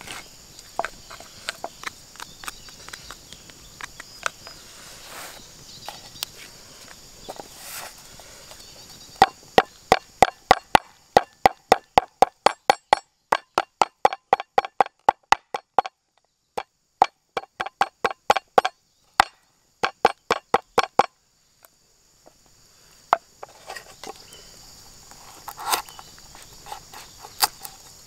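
Wooden pestle pounding lemongrass and galangal on a wooden cutting board to bruise them: a fast, even run of sharp knocks, about three to four a second, starting about nine seconds in, with a brief break halfway, and stopping about twenty-one seconds in.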